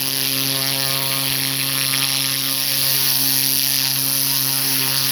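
Pressure washer running steadily: a constant motor hum under the hiss of its water jet spraying.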